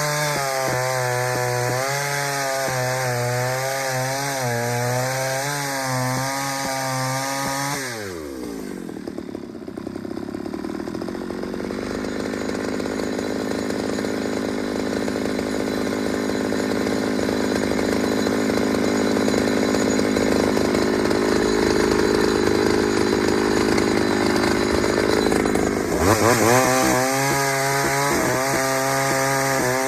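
Ported Pioneer chainsaw running at full throttle with its revs wavering; about eight seconds in the revs drop sharply as it goes into the wood. It cuts under load for some eighteen seconds, then the revs climb quickly back up as it comes free of the cut.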